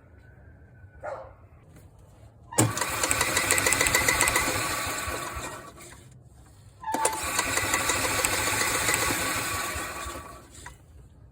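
Club Car DS golf cart's gasoline engine turned over twice by the starter without firing, each run about three seconds long with a rapid even pulsing that trails off at the end. This is dry cranking to circulate fresh oil after an oil change.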